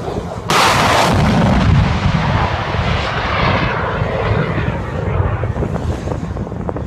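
Buk surface-to-air missile launched from its tracked launcher: a sudden blast about half a second in as the rocket motor fires, then the motor's roar trailing off slowly as the missile climbs away.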